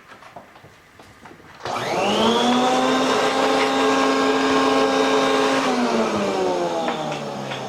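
Bridgeport milling machine spindle motor switched on about a second and a half in, whining up to speed almost at once, running steadily for about four seconds, then switched off and winding down with a falling pitch. A few light handling clicks come before it starts.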